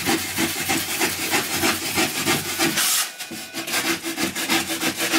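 A sharp knife sawing through a Finnfoam extruded-polystyrene insulation board in rapid back-and-forth strokes, carving it to fit, with a short break about three seconds in.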